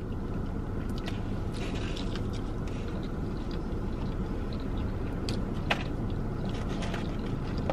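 Soft chewing and a few faint clicks from handling food, over a steady low hum inside a parked car's cabin.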